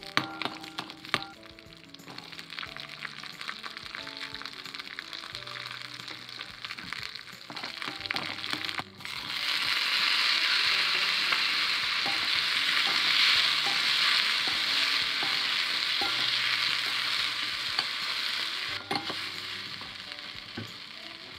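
Hot oil sizzling in a steel kadhai as dal and onions fry, with a few ladle clinks. About nine seconds in, chopped tomatoes and chillies go into the oil and the sizzle turns loud. It eases off near the end.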